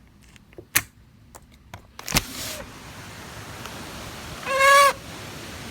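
A few light clicks, then a sharp knock about two seconds in, after which steady storm wind noise comes in. Near the end there is a brief high squeal lasting under half a second.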